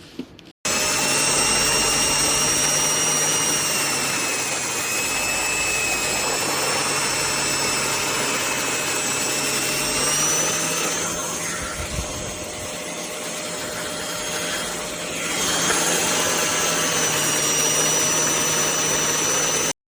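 Hoover CleanSlate carpet and upholstery cleaner's motor running steadily with a high whine. It starts suddenly, dulls and loses its whine for a few seconds in the middle, then returns until it cuts off at the end.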